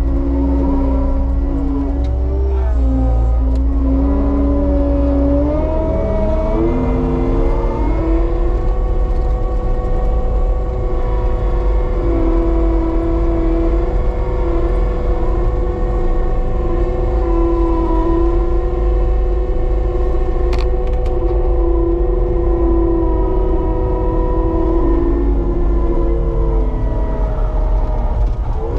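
Cat 299D3 compact track loader's diesel engine and hydraulics working under load while digging, the pitch shifting up and down through the first several seconds, then holding steady at high revs, and shifting again near the end.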